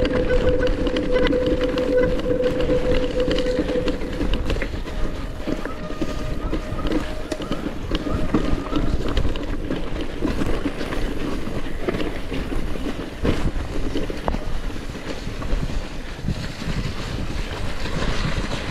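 Mountain bike riding down a muddy, rough singletrack: a continuous rattle and rumble of tyres, chain and suspension over the ground, with many small knocks. Over the first four seconds a steady whine from the e-bike's drive motor sits on top, then fades.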